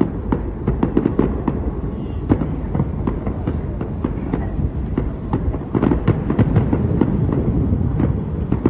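Fireworks going off: a continuous crackle of many sharp, irregular pops over a steady low rumble.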